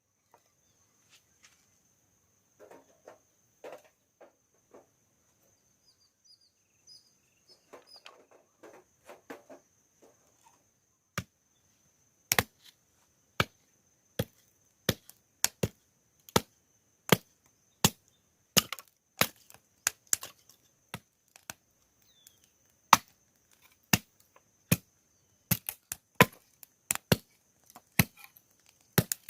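Soft handling rustles, then from about eleven seconds in, a blade chopping on wood in sharp, irregular strikes, roughly one or two a second.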